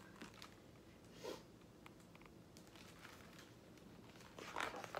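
Quiet room tone, then a short paper rustle near the end as a page of a hardcover picture book is handled and turned.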